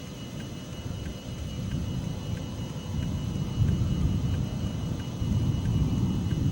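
Wind buffeting the camcorder microphone: a gusty low rumble that grows louder a little over halfway through.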